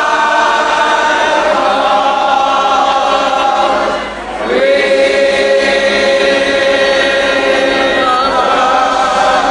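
Large gospel choir singing, holding long sustained chords. About four seconds in the sound dips briefly, then the next chord swells in.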